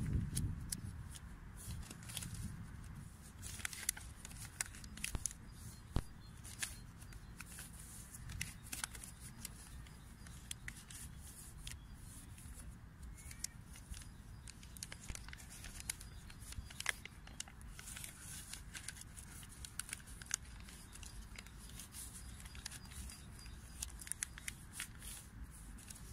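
A sheet of paper being folded and creased by hand: scattered crinkles and short sharp snaps of the paper, over a steady low rumble.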